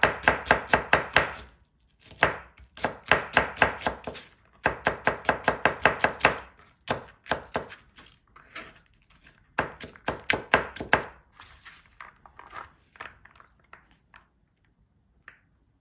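Chef's knife rapidly chopping onion on a plastic cutting board: quick runs of knife strikes, about six a second, in several bursts with short pauses between them, thinning out to scattered strokes near the end.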